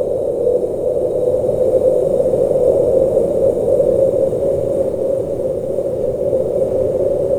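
Howling, hissy blizzard wind: a steady, loud rush of wind noise, centred low in pitch with fainter hiss above, swelling a little now and then.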